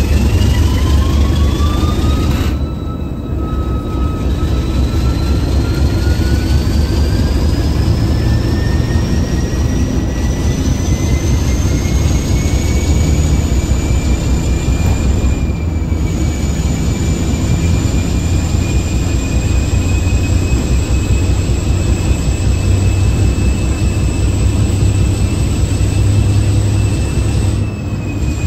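ALCO RS-1 diesel-electric locomotive, heard from inside its cab, running under power with a heavy engine rumble. A high whine climbs in pitch over roughly the first dozen seconds, then holds steady.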